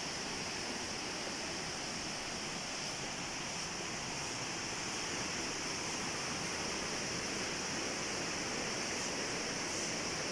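Waterfall and the rocky cascade below it rushing steadily, heard close by, growing slightly louder in the second half.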